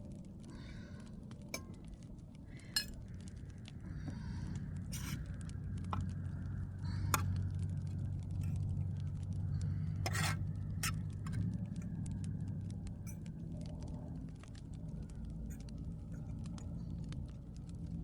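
Utensils clinking and scraping against a dish as food is served and eaten, with scattered sharp clicks over a low steady hum.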